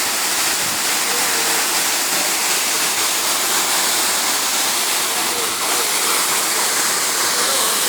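Waterfall rushing with a steady, unbroken roar of falling water.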